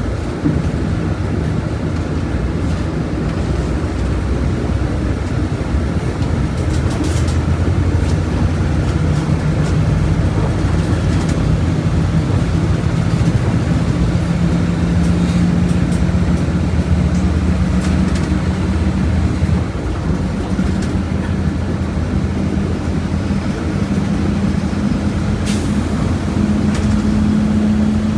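Volkswagen Volksbus 17.230OD diesel bus engine running under load, its pitch climbing slowly and steadily, dropping briefly about two-thirds of the way through, then climbing again.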